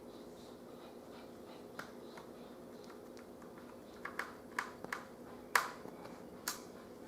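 Light, sharp clicks and taps of a small screwdriver and hands working on a laptop's screen frame and its screws, scattered and bunched in the middle, the loudest about five and a half seconds in, over a faint steady hum.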